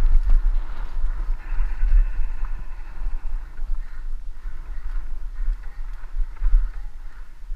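Wind buffeting the microphone of a helmet-mounted camera during a fast ride down a dirt singletrack, with a steady hiss of tyres rolling over dirt.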